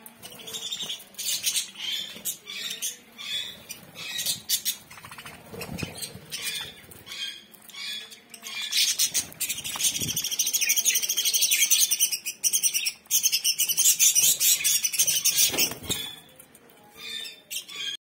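A flock of budgerigars chirping and chattering: scattered short chirps at first, then from about halfway a dense, rapid chatter that is the loudest part, thinning out again near the end.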